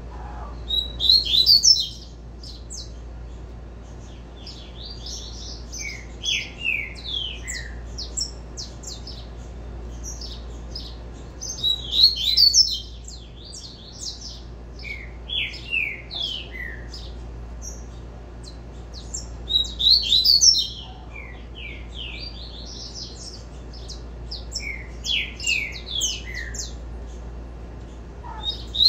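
Double-collared seedeater (coleiro) singing its 'tui-tui' song. Each phrase opens with a loud rapid burst of high notes and runs on into a string of falling notes, repeating about every eight seconds, four times.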